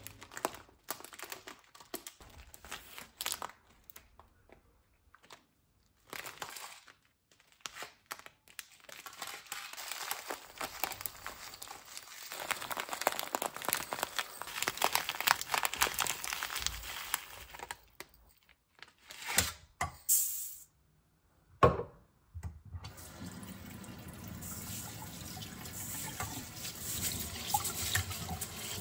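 Dry rice rustling in its plastic bag and then pouring into a ceramic cup, a long run of grains pattering down. From about two-thirds of the way in, a kitchen tap runs steadily onto rice in a metal mesh sieve as it is rinsed by hand.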